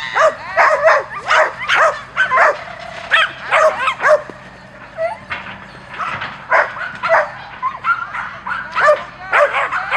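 Small dog yapping over and over in quick, high-pitched barks, with a brief lull about halfway through.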